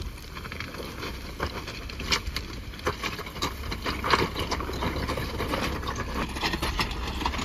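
Jeep Wrangler engine running at low revs while it crawls over loose cobblestones, its tyres crunching and knocking stones with scattered sharp clicks, the loudest about two and four seconds in.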